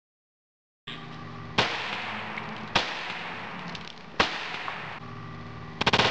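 Taurus Model 94 .22 LR revolver firing Winchester 36-grain hollow points into water: three sharp shots about a second and a half apart, then a quick flurry of cracks near the end.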